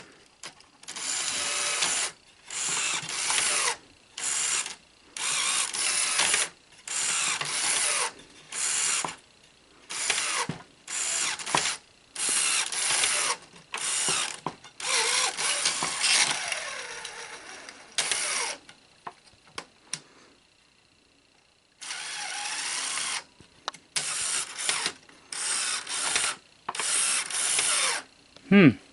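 Sony SL-HF600 Betamax VCR's loading mechanism, its motor and gears whirring in short bursts that start and stop over and over, with a pause of a few seconds about two-thirds of the way through. The mechanism keeps cycling because its switches keep being triggered, which the owner puts down to dirty switches.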